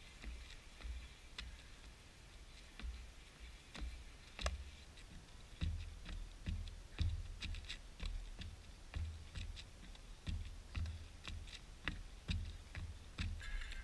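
Soccer ball being juggled: irregular light taps of shoes on the ball, one or two a second, with low thuds underneath.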